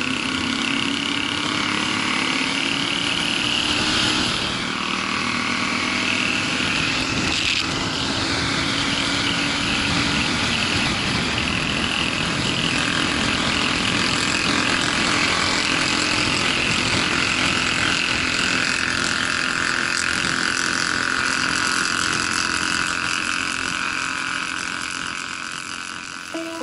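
Motorcycle engine running at road speed, heard from the rider's own bike with heavy wind rush over the microphone; the engine note climbs a little in the first few seconds, and the sound fades near the end.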